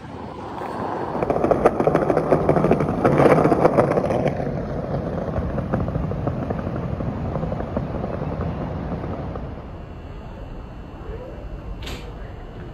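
City street noise: a rumble that swells loud about a second in and eases after about four seconds to a steadier background, with a brief high squeak near the end.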